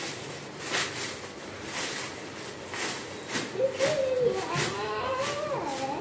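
Soft rustling or handling noises about once a second, then from about halfway a high-pitched voice in long, drawn-out sounds.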